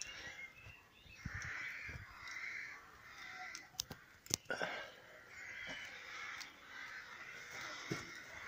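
Crow-family birds cawing over and over, a series of harsh calls each about half a second long. A few sharp knocks stand out about four seconds in.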